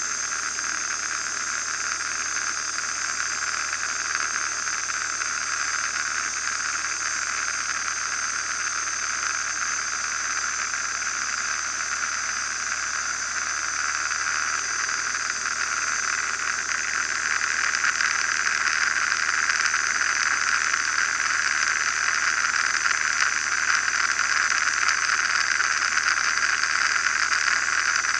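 Steady cockpit noise of a Van's RV-9A light aircraft in flight: propeller and engine drone mixed with wind noise, heard from inside the cabin, growing somewhat louder about two-thirds of the way through.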